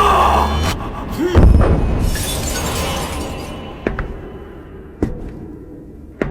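Soundtrack music that cuts off, then a heavy crash with a deep boom and shattering. A fading rumble follows, broken by single sharp clicks about a second apart.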